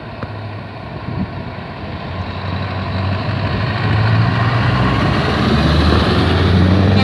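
Scania truck tractor unit's diesel engine running as the truck pulls out and drives past close by. It grows louder over the first few seconds and stays loud through the pass.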